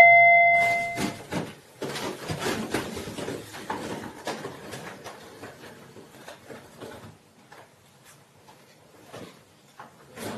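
The lower second note of a door intercom's two-tone chime rings out and fades over about a second. Then a run of quick footsteps in slippers knocks and clicks on a wooden floor for several seconds, fading away, with one sharper knock near the end.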